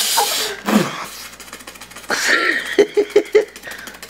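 Young men's breathy laughter: a hissing exhale, a short falling vocal sound, then a quick run of about four laugh pulses near the end.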